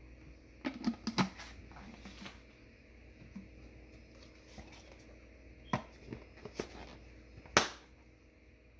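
Objects being handled at close range: a quick run of sharp clicks and knocks about a second in, a few more around six seconds, and one louder knock near the end.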